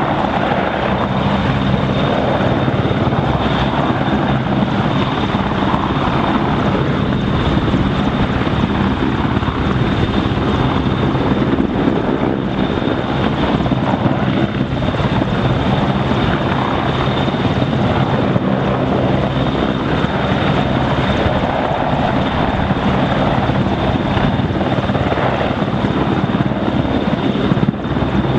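Royal Navy AgustaWestland AW101 Merlin helicopter flying low and close, its three Rolls-Royce Turbomeca RTM322 turboshaft engines and main rotor making a loud, steady roar with a constant high whine.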